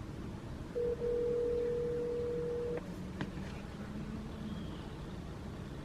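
Telephone ringback tone from a phone's speaker: one steady ring of about two seconds begins about a second in, then a pause, meaning the called phone is ringing and has not been answered.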